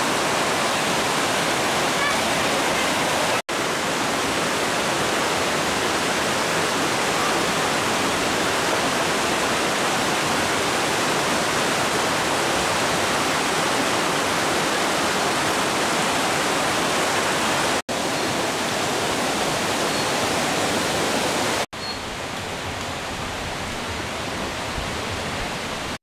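Mountain stream rushing and splashing over rocks in small cascades, a steady loud rush of water. It briefly drops out three times and is somewhat quieter for the last few seconds.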